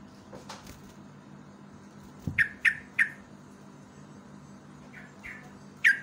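Yellow-vented bulbul giving short, sharp calls that each fall quickly in pitch: three in quick succession about two and a half seconds in, then two fainter ones and a loud one near the end.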